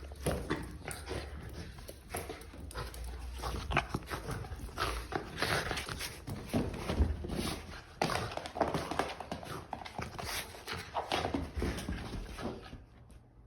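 Shiba Inu dog whimpering and whining in a dense string of short, irregular cries, with some panting, fading out near the end.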